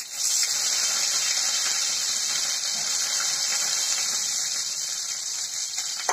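Fresh curry leaves sizzling in hot oil with popped mustard seeds and cumin, the tempering for sambar. A loud, steady hiss starts suddenly as the leaves hit the oil and slowly dies down.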